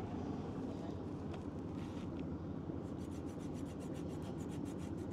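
A boat engine running with a steady low hum; from about three seconds in, a fast, regular rasping tick joins it, several strokes a second.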